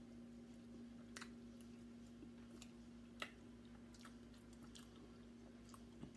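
Faint chewing and mouth clicks of people eating French fries and pigs in a blanket, with scattered small clicks, the sharpest about three seconds in.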